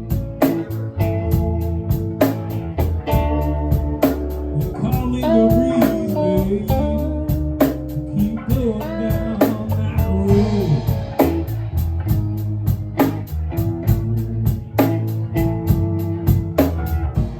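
Live blues-rock band playing an instrumental stretch: a guitar lead with bent notes over bass and drums, a cymbal struck in a steady rhythm.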